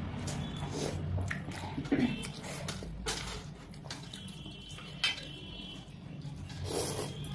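Eating sounds: Maggi curry noodles being slurped and chopsticks clicking now and then against steel plates.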